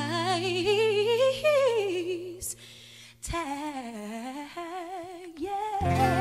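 Female singer's wordless ad-lib with heavy vibrato, climbing and then falling in pitch, over a ringing acoustic guitar chord. After a short break the voice carries on lower, nearly alone, and the guitar comes back with a new chord near the end.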